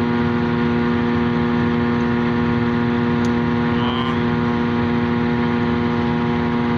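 Self-propelled forage harvester running at a steady speed, a constant machine drone with a strong, unchanging hum.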